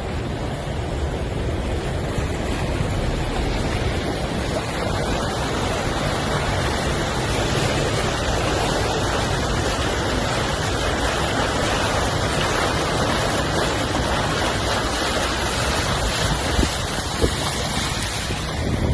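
Floodwater rushing steadily, with wind noise on the microphone.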